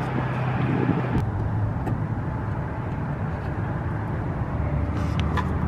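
A steady low car-engine hum, with a few light clicks about five seconds in.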